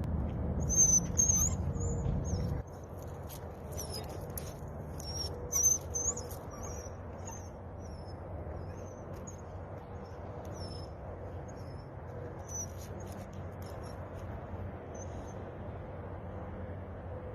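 Small birds chirping in a rapid run of short, high, sliding notes that thin out and stop near the end, over a steady low rumble of background noise that drops noticeably a couple of seconds in.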